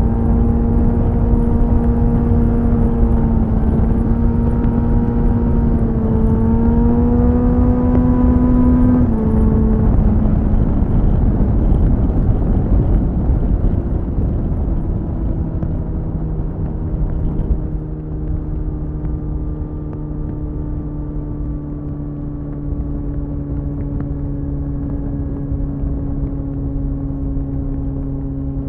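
Suzuki GSF 600 Bandit's inline-four through a BOS slip-on exhaust, heard onboard with wind rushing past. The engine holds a steady note, rising slightly before it drops off about nine seconds in as the throttle closes. The note then slides lower and settles into a quieter, steady lower note.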